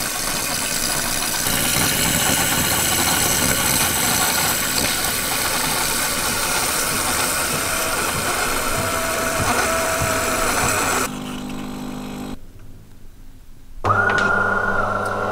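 Milk frothing system of a DeLonghi PrimaDonna Class bean-to-cup espresso machine running, with a loud steady hiss and sputter as frothed milk pours into the glass for about eleven seconds. This is followed by a short mechanical whir, a quieter pause, and near the end the steady hum of the machine brewing espresso into the milk.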